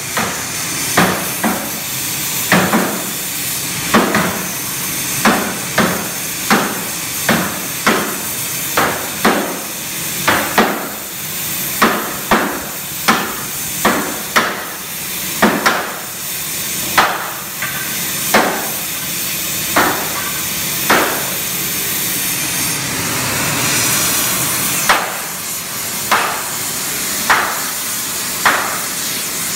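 Sledgehammers striking a red-hot firebox plate in turn, flanging its corner by hand: heavy blows every half second to a second, with a pause of a few seconds about two-thirds of the way through. A steady hiss runs underneath.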